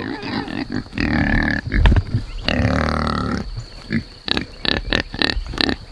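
Pigs grunting: two longer, drawn-out grunts, then from about four seconds in a quick run of short grunts, roughly three a second.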